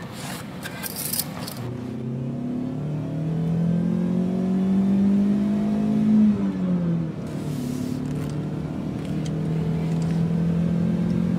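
Car engine pulling away and accelerating, its pitch climbing, dropping about two-thirds of the way through as if changing gear, then running steady. A few knocks and rustles come in the first second or so.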